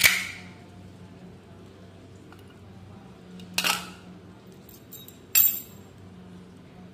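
Small brass padlock and its key being handled on a hard surface: a sharp metallic click at the start, then two more short clicks and clinks about three and a half and five and a half seconds in as the lock and the key are picked up.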